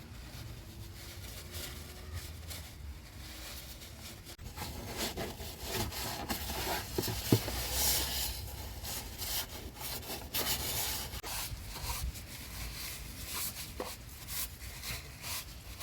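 Rag rubbing and wiping spilled fresh engine oil off the engine, scrubbing strokes that grow stronger about four seconds in, with one short knock partway through.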